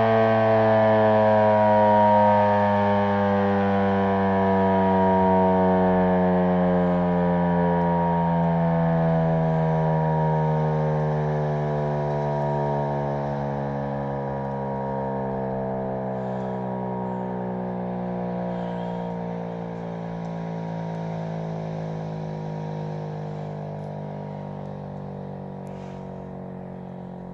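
1942 Federal Electric Model 5A three-phase single-tone siren winding down, its pitch falling slowly and its sound fading.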